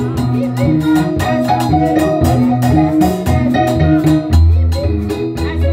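Live worship music: a Yamaha electronic keyboard plays held chords and deep bass notes over a steady, crisp percussion beat.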